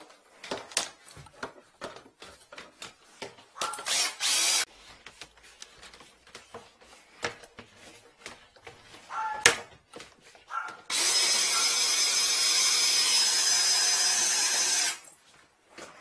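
Tools and drain cable clattering as they are handled, then a cordless drill running briefly about four seconds in and again steadily for about four seconds near the end.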